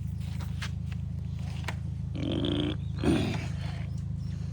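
Two short vocal sounds about a second apart, the second louder and falling in pitch, over a steady low hum.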